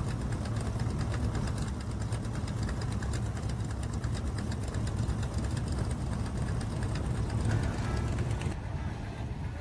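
Car engine idling steadily, with a fast, even ticking over its low running sound. The ticking stops near the end.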